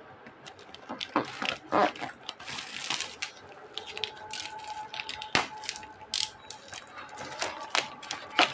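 Packaging being handled and opened by hand: irregular crinkling, scraping and small clicks and taps, with a sharp click a little past the midpoint and another near the end.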